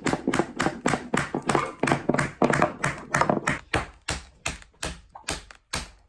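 Rubber mallet tapping a wooden wedge into the seam between an epoxy-cast slab and its taped form wall, driving the form side off the slab. The blows are quick, sharp knocks, about three a second.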